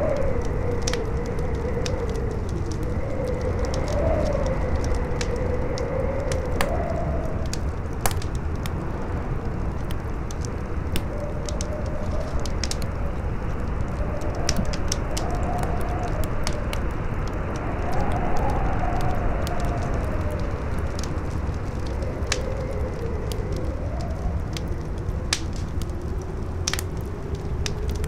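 Campfire crackling with frequent sharp pops, over a strong wind howling in a pitch that rises and falls.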